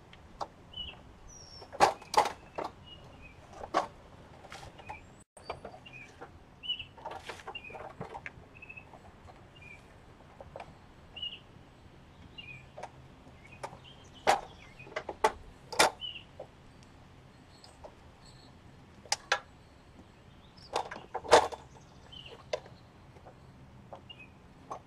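Scattered clicks and knocks of metal and plastic parts being handled and pried as a dishwasher door is taken apart, the loudest a few sharp knocks near the middle and about two-thirds through. Faint short bird chirps sound now and then in the background.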